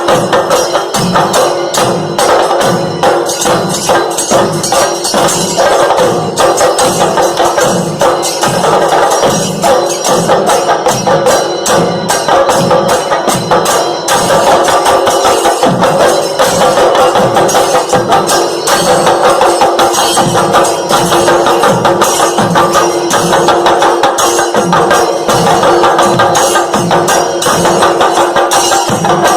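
Background music with a steady percussion beat over a held drone note.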